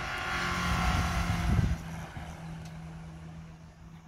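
Hillclimb race car engine accelerating past, growing louder to a peak about a second and a half in, then fading away. A steady low hum runs underneath.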